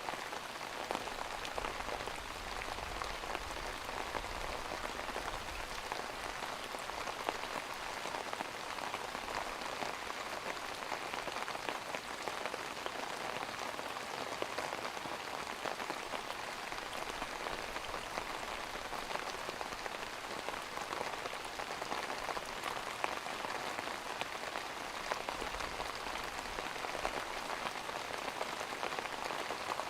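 Rain falling steadily, a dense, even patter of drops that holds the same level throughout.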